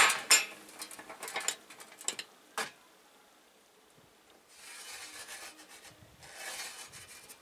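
A marker pen rubbing across a sheet-metal panel along a speed square: two scratchy strokes of about a second each in the second half, after a few light clicks and taps of the square and metal being set in place.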